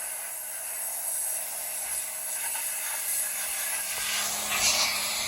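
A steady hiss of escaping air or spray, with a louder surge about four and a half seconds in.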